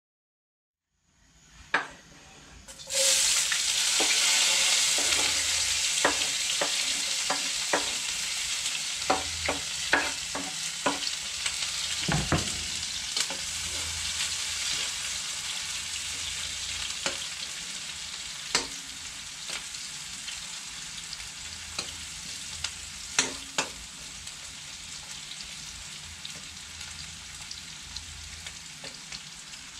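Chopped onion hitting hot cooking oil in a metal pot, starting a sudden loud sizzle about three seconds in. It goes on as steady frying, with the clinks and scrapes of a metal spoon stirring, the sizzle slowly easing.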